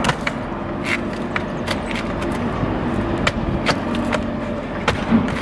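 Light, irregular knocks and clicks from handling and setting metal roof panels, about nine in a few seconds, over a steady low hum.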